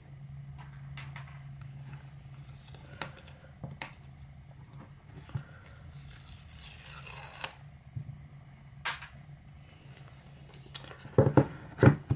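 Paper pull tab on a smartphone box being torn off, a brief ripping hiss about two-thirds of the way in, amid scattered clicks and handling of the cardboard. Near the end, two loud thumps as the box is turned over and set down on the table.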